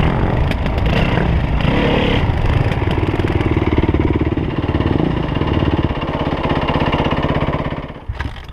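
Yamaha WR450F four-stroke single-cylinder dirt bike engine running close under the rider, its revs changing over the first couple of seconds and then holding steady. The engine sound drops away sharply near the end.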